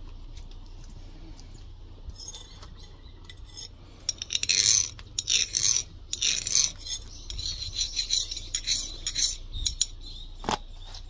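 A thin steel tool scraping along the edge of a forged steel knife blank in a run of quick, scratchy strokes for about five seconds, the sign of the edge being marked out. A single sharp click comes near the end.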